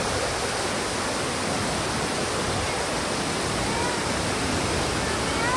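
Steady, even rush of fast whitewater in a creek just below a powerful waterfall.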